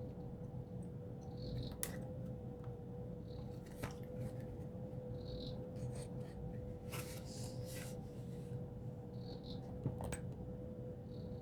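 A few scattered keystrokes on a custom mechanical keyboard with lubed, filmed Gateron Milky Yellow linear switches on a POM plate, over a steady low hum.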